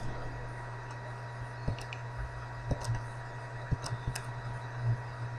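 Steady low electrical hum with a faint higher whine, and several faint, short clicks scattered through it.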